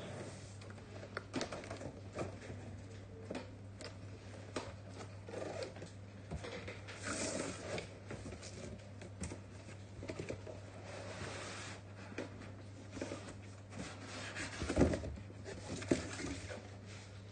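Cardboard box and molded pulp packaging being handled: flaps rustling and scraping, with scattered knocks and clicks, and a louder knock about 15 s in and again about a second later. A steady low hum runs underneath.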